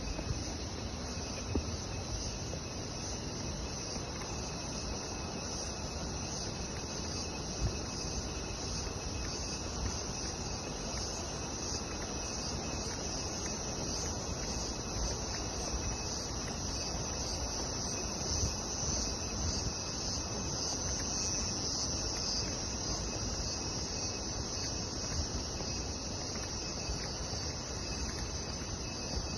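Insects chirring steadily, a dense high-pitched buzz that never breaks, over a steady low rushing noise.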